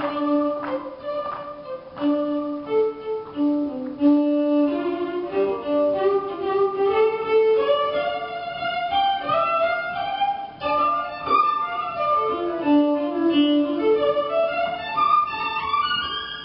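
Violin played with a bow: a slow melody of long held notes, with some slides between pitches.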